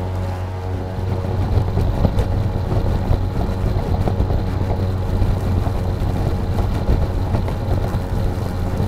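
EGO LM2135SP 56-volt battery self-propelled lawn mower running under load: a steady hum of several tones from the motor and spinning blade, with the rough rush of grass being cut. The cutting noise grows louder and choppier from about a second in.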